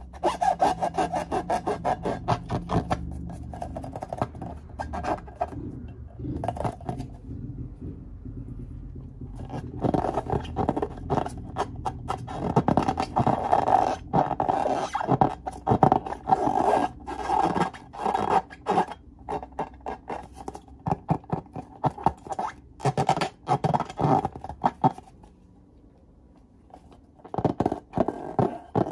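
Hands rubbing and squeezing filled latex balloons: dense runs of scraping, squeaky rubbing strokes, with a brief lull about a quarter of the way in and another near the end.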